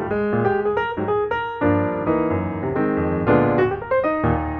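Background music led by piano: a light melody over chords, with notes changing several times a second.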